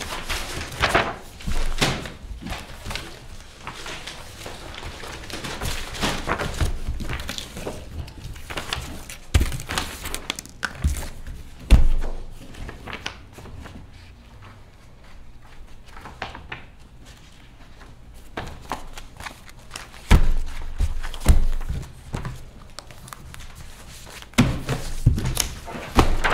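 Paper rustling as the pages of thick document folders are leafed through and shuffled, with scattered dull thunks of folders and paper stacks knocking on a table, the loudest about 12 s and 20 s in.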